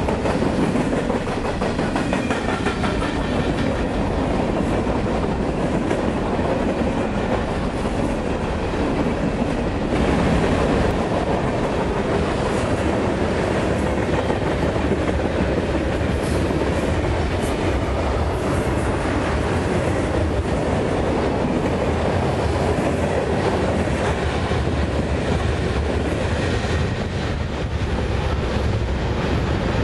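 Freight cars of a mixed freight train rolling past at close range: a steady noise of steel wheels running on the rails.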